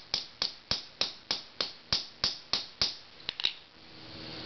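Hammer striking a steel pin punch in quick, even blows, about three a second, driving the base socket out of a CDV-700 Geiger counter probe. About three seconds in the blows stop, and two lighter clicks follow.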